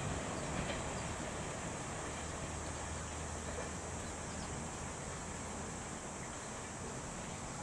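Low rumble of a container freight train dying away in the distance after it has passed, settling into a steady outdoor background hum and hiss.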